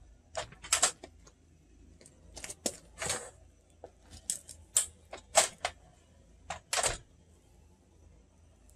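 Aluminium awning rafter bar being slid up the awning arm: about a dozen sharp metal clicks and clacks, unevenly spaced, as it moves toward its catch.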